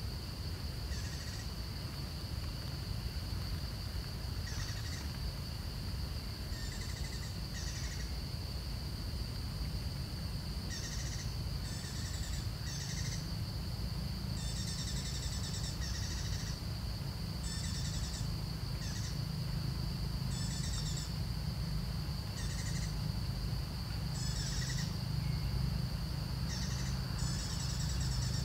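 Outdoor wildlife ambience: a steady high insect drone with short, high chirping calls repeating every second or so, over a steady low rumble.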